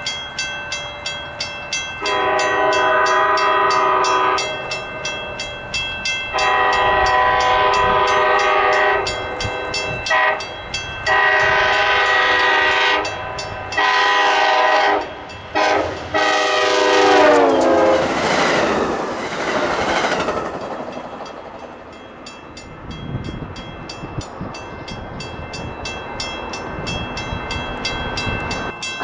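Locomotive air horn sounding a series of blasts as a train approaches: two long, a short and a long, then more blasts, the last one dropping in pitch as the locomotive passes. The train then rushes past and fades away, while a bell rings steadily at about three strokes a second.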